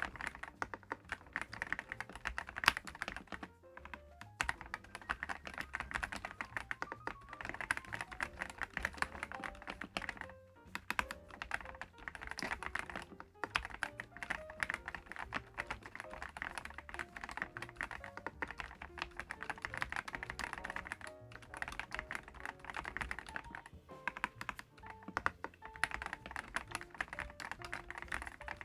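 Steady, fast typing on a DAREU EK75PRO gasket-mounted mechanical keyboard with Dream HiFi linear switches: a dense run of key clicks with brief pauses, under background music with a light melody.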